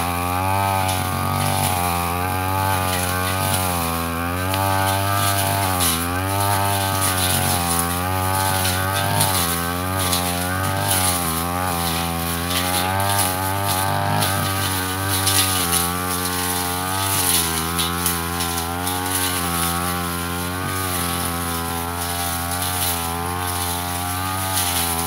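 Yasuka backpack brush cutter's engine running at high revs, its pitch sagging and recovering again and again as the blade bites into dense ferns.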